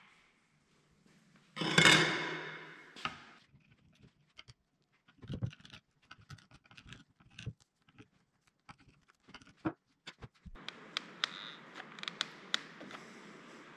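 A short crunching scrape about two seconds in, then scattered light clicks and taps as small chips of hardened epoxy and a chisel are handled. Near the end a faint steady hiss comes in under more light clicks.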